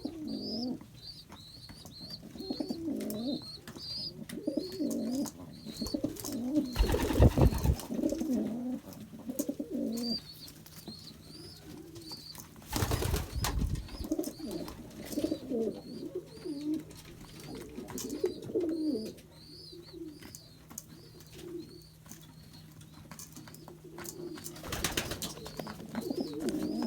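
Pigeons cooing in a loft, low warbling calls that keep going, over a steady series of short high chirps. Three times, brief loud bursts of wing flapping cut through.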